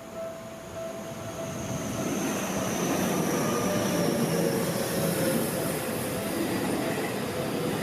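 Electric train on the Seibu Ikebukuro Line running through a level crossing: wheel and rail noise builds from about a second and a half in and stays loud, with a high whine falling slowly in pitch. The crossing's warning bell is ringing at the start and is soon drowned out.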